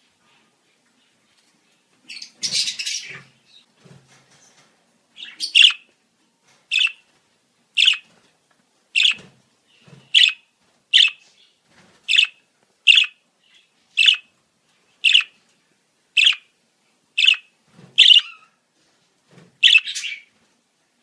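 Budgerigar calling: a short burst of chatter, then a run of about a dozen sharp single chirps roughly once a second, ending in a quick double chirp.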